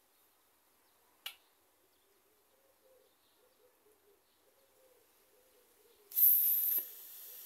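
Byrna SD CO2 launcher with a custom valve pin: a single sharp click about a second in, then near the end a sudden loud hiss of escaping CO2 for under a second, ending in a knock, with a weaker hiss of gas still seeping out after it.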